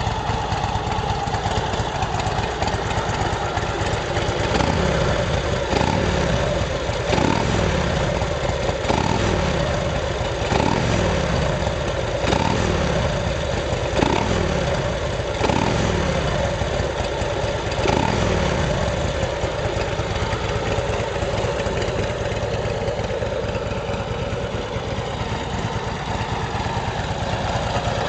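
2007 Big Dog Mastiff's 117 cubic inch S&S V-twin running through its Supertrapp exhaust, its throttle blipped about nine times, each rev falling back, then settling into a steady idle after the last blip around 18 seconds in. Its carburetor has just been rebuilt and it runs well.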